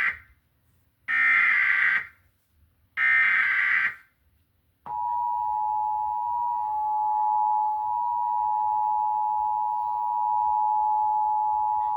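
Emergency Alert System broadcast tones: the tail of one burst of shrill digital header data, then two more one-second bursts a second apart. About five seconds in, the steady two-tone EAS attention signal starts and holds. It announces an emergency alert, here an Amber Alert.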